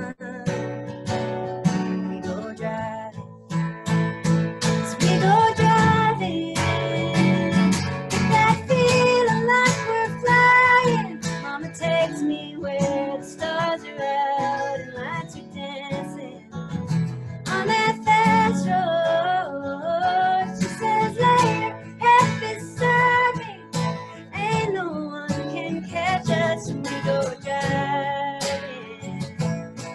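A woman singing to her own strummed acoustic guitar. The guitar strums steadily throughout, and her voice comes in about four seconds in.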